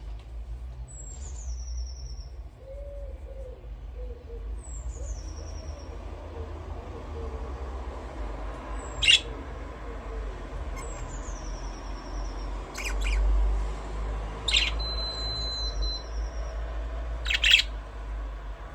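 Budgerigars calling. Four high whistles each slide downward, spaced a few seconds apart, and several short, sharp chirps stand out above them, the loudest about halfway through and near the end. A steady low hum runs underneath.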